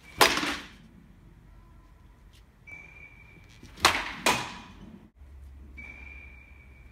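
A baseball bat hitting a ball off a batting tee, a sharp crack about a quarter second in. Around four seconds in comes another crack of bat on ball, followed half a second later by a second sharp impact.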